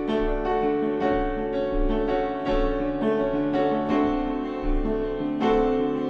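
Upright piano played solo, chords and notes struck in a steady rhythm about two to three times a second: an instrumental passage of a song.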